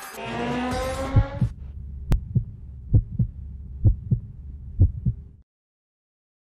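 Logo-intro sound effect: a rising synthetic sweep, then a heartbeat-like double thump repeated about once a second over a low hum, with a sharp click near two seconds in. It cuts off suddenly about five seconds in.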